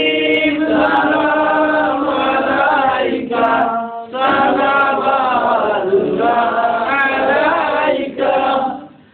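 Group of men chanting together in unison, a devotional milad recitation sung in long, held lines. It breaks briefly for breath about three and four seconds in and again near the end, then stops.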